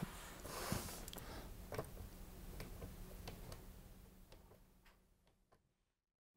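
Faint, scattered clicks from a rotary-dial desk telephone as its handset is lifted and its dial is turned. The sound fades out about five seconds in.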